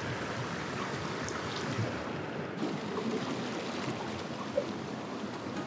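Steady rush of a shallow mountain stream running over stones and gravel.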